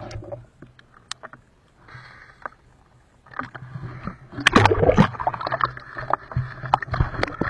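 Muffled underwater ticks and clicks, then water splashing and sloshing over the microphone as the diver breaks the surface about three seconds in, with many sharp knocks and clicks, loudest just after surfacing.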